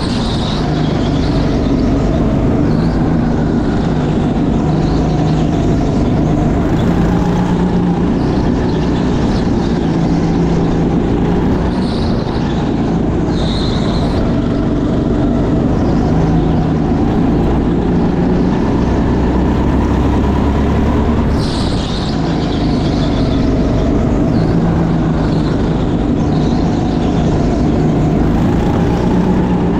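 Rental kart engine heard onboard, running hard through laps, its pitch rising and falling repeatedly with throttle through the corners. There are a few short high squeals, one near the middle and one about two-thirds in.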